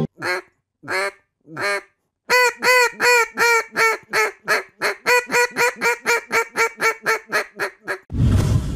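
Duck call blown by mouth: three single quacks, then a fast, even run of about twenty quacks at roughly four a second. A loud whoosh comes near the end.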